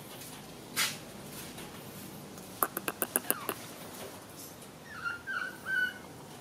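A quick run of about six sharp clicks, then a few short squeaky calls from a young animal near the end.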